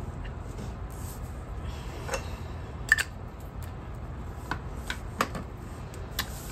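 Desk handling sounds of a paper planner and a pen-style tool: about five light clicks and taps, the sharpest about three seconds in, over a steady low room hum.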